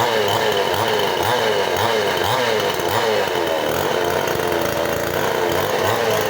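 Two-stroke chainsaw engine running at high speed, its pitch dipping and recovering about twice a second.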